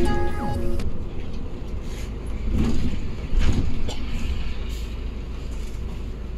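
Intercity coach bus on the move: a steady low rumble of engine and road noise. Background music cuts off abruptly about a second in, and the sound swells briefly about three seconds in.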